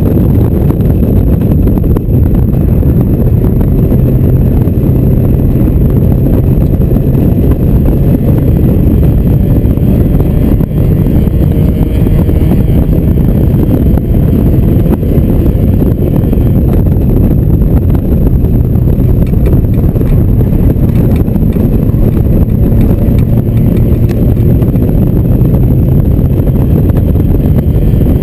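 Mazda MX-5's four-cylinder engine running hard on a fast lap, mixed with tyre and wind rush heard from the open cockpit. The sound is loud and steady throughout, with only faint changes in engine pitch.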